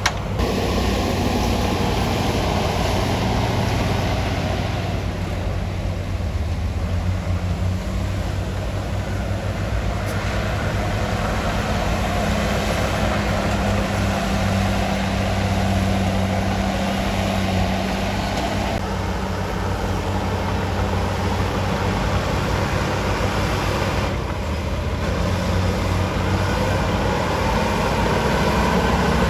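Komatsu D53P bulldozer's diesel engine running steadily under load with a low, even hum, the upper noise dropping away and returning a few times as the work changes.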